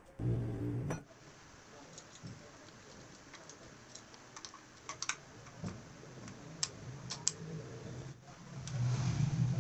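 Light, irregular clicks and taps of small metal engine parts and hand tools during hands-on assembly of a Yamaha Mio scooter engine.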